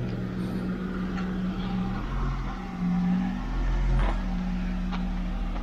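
A vehicle engine running with a steady low hum whose pitch steps up and down a few times, with a couple of light clicks.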